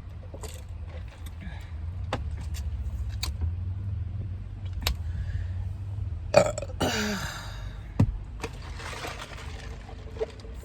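A woman's loud burp about six seconds in, one long belch falling in pitch, amid scattered chewing clicks while eating pizza and drinking Sprite.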